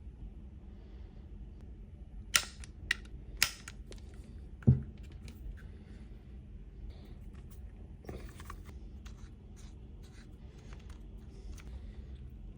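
Handling noise from a Glock 48 pistol: three sharp clicks about half a second apart, then a dull thump, followed by scattered lighter clicks and ticks over a steady low hum.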